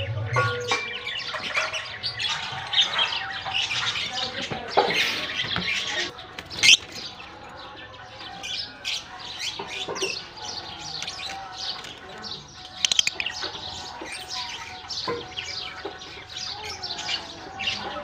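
A flock of blue masked lovebirds chirping and chattering, with rapid short high chirps overlapping throughout and one louder, sharp call about seven seconds in.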